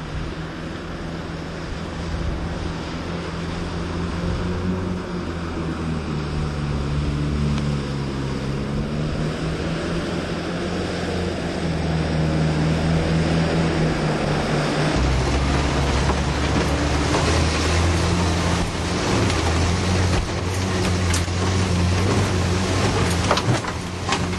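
Off-road vehicle's engine running under load as it drives through deep water and mud, its note rising and falling with the throttle. Water splashes and rushes around it, louder in the second half, with a few sharp knocks near the end.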